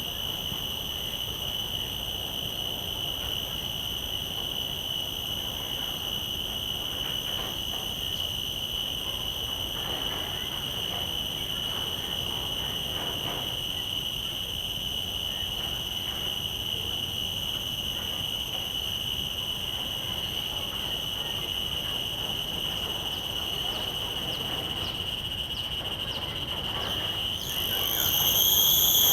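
Cicadas singing in a steady, continuous high buzz. Near the end a much closer common cicada starts its song, louder, its pitch sliding up slightly as it comes in.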